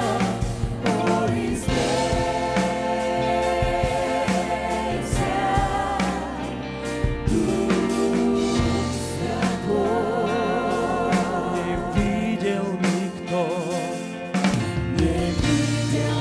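Live worship music: female lead and backing singers holding long, wavering notes over keyboard-led band accompaniment, the low notes briefly dropping out about three quarters of the way through.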